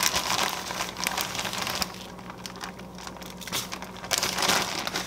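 Plastic zip-top bag holding leftover fish-fry breading being handled and folded, crinkling for the first couple of seconds and again briefly about four seconds in.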